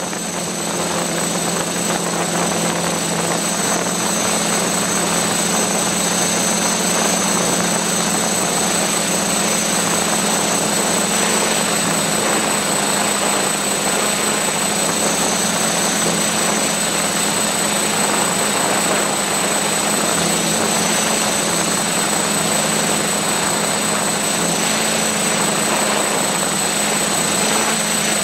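DIY drone's motors and propellers running steadily, heard from the camera riding on the drone: a constant hum with a thin high whine over a dense rush of propeller wash.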